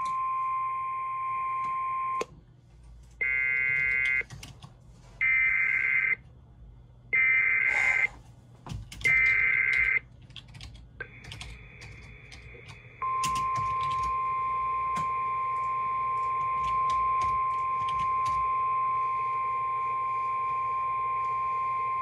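Emergency Alert System relay over a weather-radio feed. A steady single-pitched alert tone stops about two seconds in. Four screechy SAME header data bursts follow, each about a second long with one-second gaps. After a moment of hiss, a long steady single-pitched warning alert tone starts about thirteen seconds in and holds.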